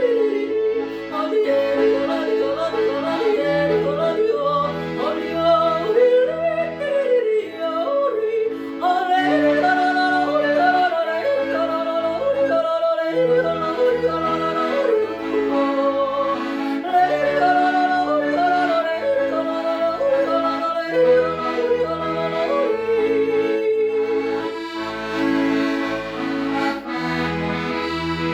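Woman yodeling a song, her voice flipping quickly between low and high notes, over accordion accompaniment with a steady bass-and-chord beat.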